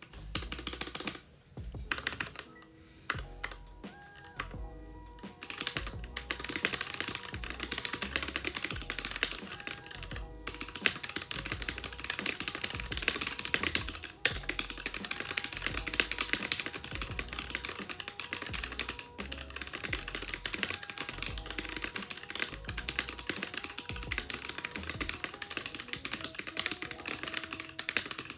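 Fast typing on a Keychron K6 mechanical keyboard with Gateron Red linear switches: a rapid stream of keystroke clacks. It starts with a few scattered keypresses and becomes continuous about six seconds in. Background music with a steady bass pulse plays underneath.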